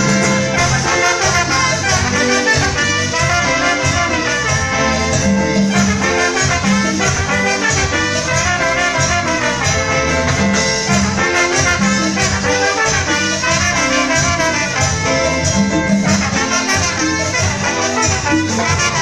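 Live band playing a brass-led Latin dance tune: trombone and trumpets carrying the melody over keytar and drums.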